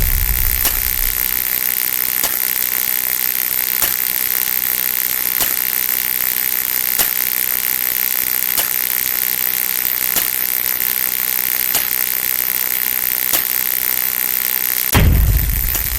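A steady mechanical hissing sound effect with a faint click about every one and a half seconds, broken by a deep, falling boom about a second before the end.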